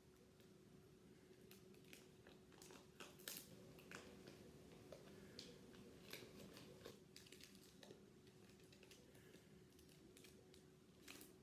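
Faint crinkling and crackling of foil trading-card booster packs being handled and torn open: irregular small crackles and clicks over a faint steady hum.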